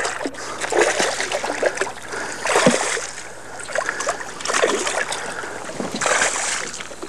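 Hooked largemouth bass thrashing and splashing at the water's surface beside the boat, in four loud bursts about every second and a half.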